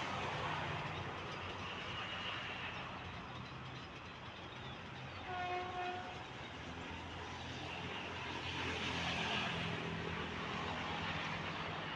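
Diesel-electric locomotive GEK 4038 running steadily, with one short horn blast a little past halfway.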